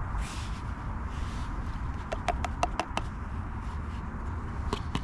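Light metallic clinks of camping cookware knocking together: a quick run of about five taps between two and three seconds in, and a few more near the end, over a steady low background noise.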